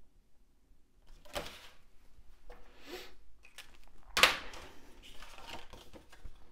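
Card stock and a clear plastic film strip being handled and shifted on a cutting mat: a series of rustles and slides, the loudest about four seconds in.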